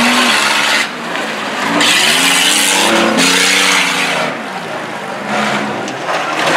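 SUV's engine revving in repeated rising bursts as it is driven around a dirt course, with a loud hiss from its tires spinning in the dirt during each burst.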